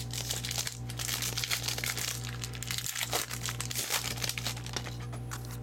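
Trading-card pack wrapper being torn open and crinkled by hand: a dense run of crackling with a couple of short lulls, over a steady low hum.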